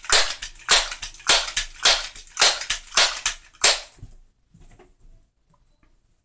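A .22 Crosman 1322 multi-pump air pistol being pumped up: about seven strokes of the pump lever, one roughly every 0.6 s, each a sharp rush of air. The pumping stops about three and a half seconds in, followed by faint handling noises.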